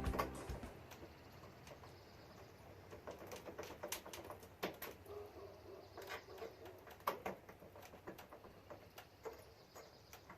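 Faint scattered clicks and taps of a metal quick release pin being worked into a drilled hole in a school bus's back door, with music fading out at the very start.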